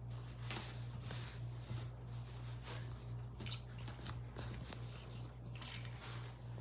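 Faint handling noises of faucet parts and a wet rag: light rustles and small clicks over a steady low hum.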